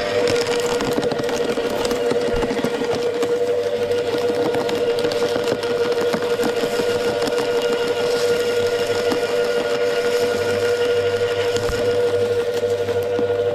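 Wood chipper running with a steady hum while branches are fed through and shredded, a dense crackling and splintering over the motor, busiest in the first few seconds.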